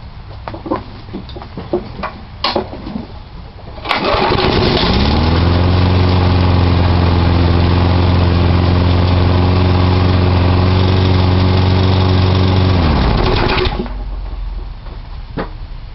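A 4-horsepower Weed Eater push mower's small engine starts suddenly about four seconds in, settles to a steady run, and is shut off, winding down near thirteen seconds. It starts right up despite sitting unused for about a month. Light clicks and knocks come before it starts.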